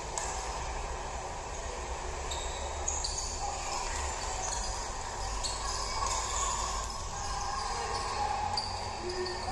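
Live basketball game sound in an arena: a sparse crowd murmuring, with the ball bouncing on the hardwood court.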